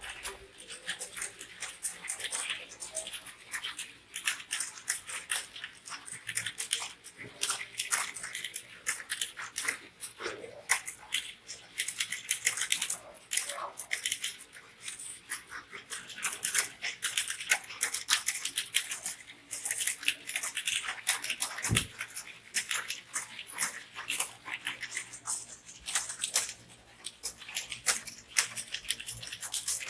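Continuous typing on a computer keyboard: a rapid, irregular stream of key clicks.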